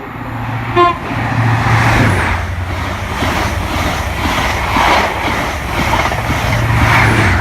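A train running through the station with a steady low engine hum and rolling noise that swells and eases in waves, and a short horn toot about a second in.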